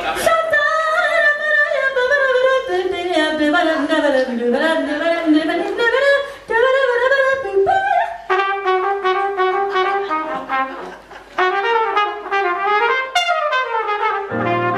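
Flugelhorn playing a melodic jazz solo line with keyboard accompaniment.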